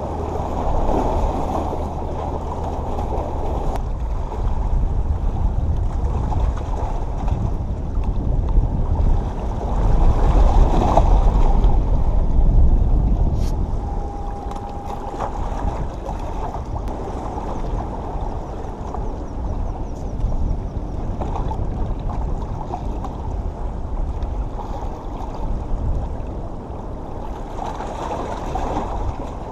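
Small waves washing and sloshing against the boulders of a rock jetty, under a low rumble; the wash grows louder about ten seconds in, then settles.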